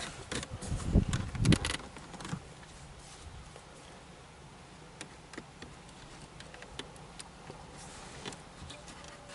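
Plastic dashboard trim being handled and pried at: a few knocks and clicks in the first two seconds, then sparse light clicks.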